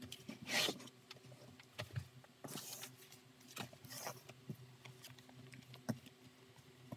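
Hands handling a zipper tape and leather bag panels on a cutting mat: three short scraping rustles, about half a second, two and a half and four seconds in, with a few light knocks between.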